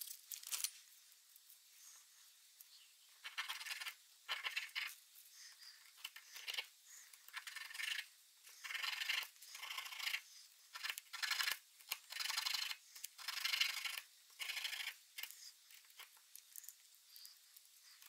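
Needle file scraping in a dozen or so short strokes, filing down a small clock-motor part so it fits better.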